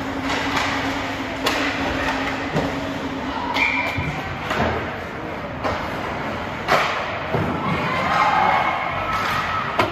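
Irregular thuds and knocks, about one every second or so, echoing in a large hall over a steady background din.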